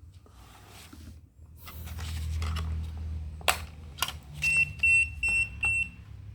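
A portable thermal receipt printer is handled, with rustling and two sharp clicks. Then it gives four short, high beeps about half a second apart.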